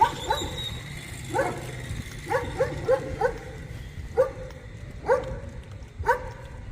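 Dogs barking: about nine short barks at uneven intervals, several coming in quick succession around the middle.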